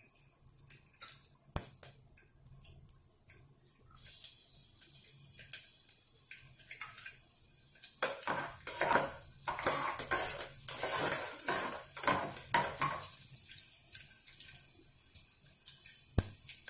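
Mustard seeds and dals frying in hot oil in a pressure cooker: a steady sizzle from about four seconds in, with a metal spatula scraping and clattering against the pot while stirring from about eight to thirteen seconds. A few sharp clinks of metal on metal, one near the start and one near the end.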